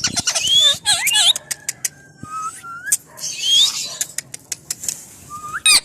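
Green Indian ringneck parakeet whistling and chattering: quick rising whistles, a run of sharp clicks, and a held whistle note, then harsher squawky calls about three seconds in.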